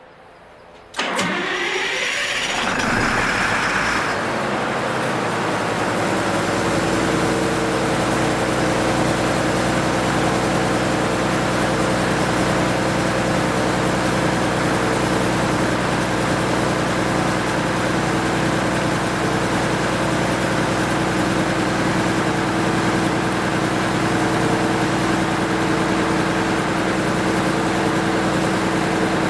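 MEP-006A military generator set's six-cylinder diesel engine, freshly rebuilt with new sleeves, pistons and bearings, starting about a second in and speeding up over the next few seconds, then running at a steady speed.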